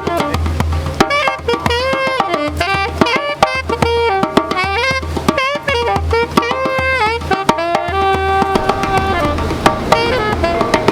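Background music: a drum beat with tabla-like percussion under a melody line that slides between held notes.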